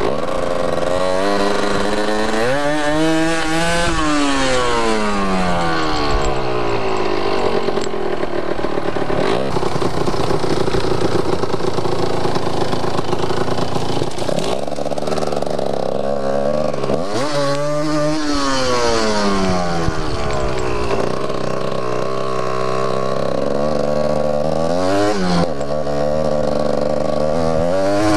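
Yamaha DT 125 two-stroke single-cylinder dirt bike engine being ridden off-road. The revs climb hard about three seconds in and again past halfway, each time falling away slowly, with shorter blips of throttle near the end.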